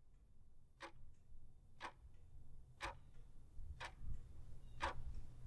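A clock ticking, one sharp tick each second, over a faint low rumble.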